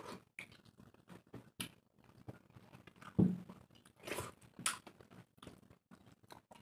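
Close-miked eating by hand: wet chewing and lip smacks, with fingers squishing soft rice-and-lentil khichdi against steel plates. There is a dull thump about three seconds in.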